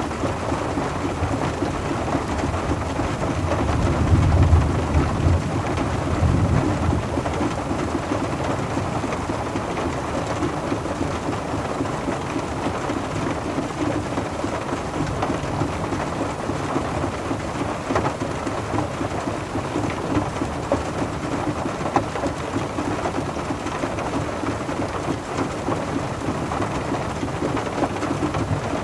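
Steady rain falling on a car, with a few sharper drop hits here and there. A low rumble of thunder swells about four seconds in and fades by about seven seconds.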